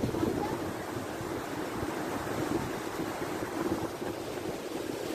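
Kunhar River white-water rapids rushing past, a steady dense noise of churning water close by.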